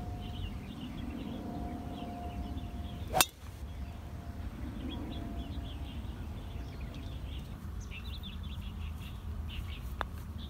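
A driver strikes a golf ball off the tee with one sharp crack about three seconds in. Near the end a putter taps a ball with a light click. Birds chirp throughout over a low outdoor rumble.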